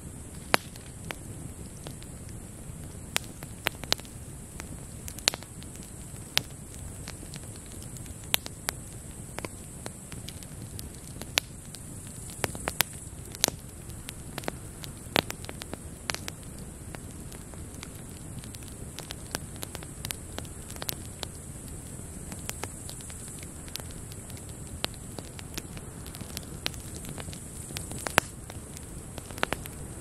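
Wood campfire of split logs stacked in a cone, crackling with irregular sharp pops over a low rumble of flame. A steady high-pitched hiss of grasshoppers runs underneath.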